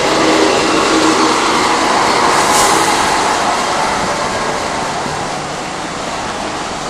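Articulated lorry with a refrigerated trailer driving past close by, a steady engine and tyre noise, with a short hiss about two and a half seconds in.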